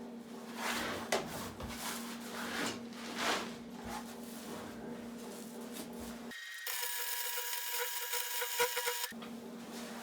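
Welder humming steadily under scraping and knocking of metal being handled, then from about six seconds in a hissing, crackling welding arc that runs for about three seconds and stops abruptly.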